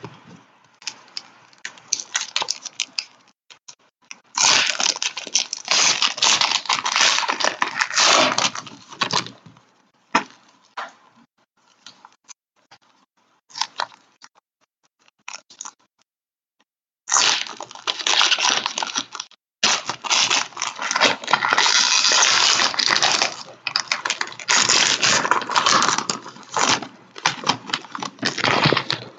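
Foil trading-card pack wrappers being crinkled and torn open by hand. This comes in two long crackling bursts, one from about four seconds in to about nine seconds and one from about seventeen seconds to near the end, with scattered clicks of cards being handled in between.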